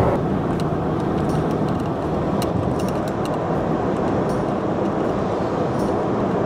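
Steady road and engine noise of a Toyota pickup driving at speed, heard from inside the cab.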